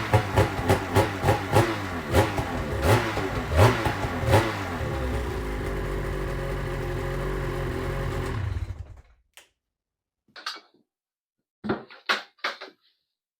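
2024 Ski-Doo Summit 850's two-stroke engine breathing through a Bikeman Performance Full Velocity aftermarket exhaust can: quick repeated throttle blips, then a steady idle, shut off about nine seconds in. A few light clicks and knocks follow.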